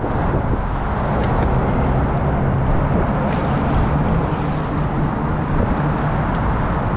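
Steady low rumble of water and wind noise picked up by an action camera on a kayak, with scattered faint ticks like water drips.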